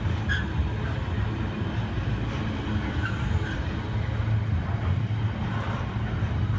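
Container freight train's loaded flat wagons rolling steadily past, a continuous low rumble of wheels on rail, with a few short squeaks from the wheels.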